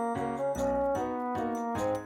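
Background music: a bright melody in short, evenly paced notes with a light, ringing top.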